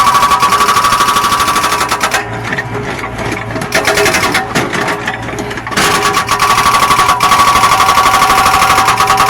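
Zoomlion excavator's diesel engine and hydraulics working: a fast, even clatter with a steady whine, which drops to a quieter, rougher sound for a few seconds in the middle before picking up again.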